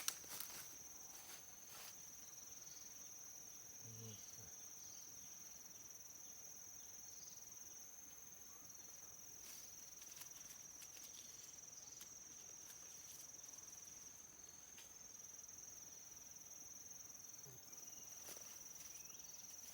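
Faint steady high-pitched insect trill held without a break, with a few faint clicks and taps.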